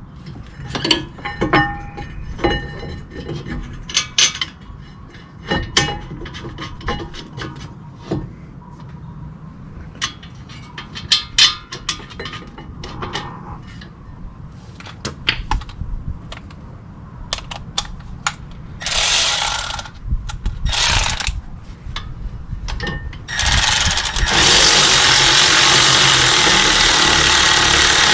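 Metal clinks and clicks of a brake caliper mounting bracket and its bolts being handled and fitted, then two short bursts and one longer run of about five seconds of a power tool driving the caliper mount bolts in.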